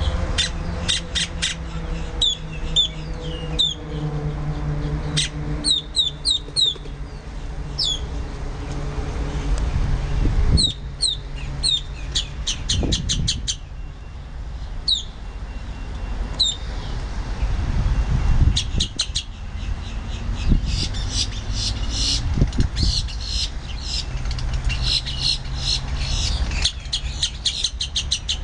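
Boat-tailed grackles calling: quick runs of sharp clicks and short upward-sweeping whistled notes, coming in bursts and thickening into dense chatter near the end. A low steady rumble lies underneath.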